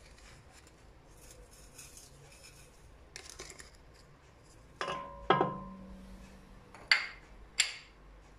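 Wooden spoon and small bowl of salt knocking against a large aluminium cooking pot while meat is salted: faint light rustles and taps at first, then two sharp knocks about five seconds in that leave the pot ringing, and two more sharp clicks near the end.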